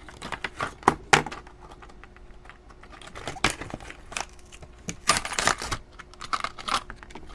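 Scattered light clicks and taps as a brass padlock's keys are worked out of their packaging, with a short stretch of rustling and crinkling about five seconds in.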